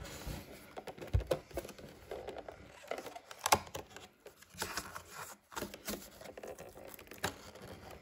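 A small cardboard toy box being handled and opened: the flap and lid scrape and rustle, with scattered light taps and knocks. The sharpest knocks come about a second in and about three and a half seconds in.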